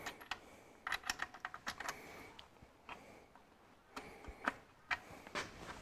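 Faint scattered metallic clicks and light taps from a connecting-rod cap on a Ferguson 23C diesel crankshaft being worked by hand. They come in two short clusters, one about a second in and one near the end.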